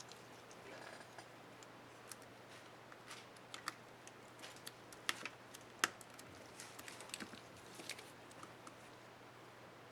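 Small plastic clicks and ticks at irregular intervals, the two sharpest a little after the middle: the space-bar keycap and its clips on an Asus K55A laptop keyboard being handled and fitted.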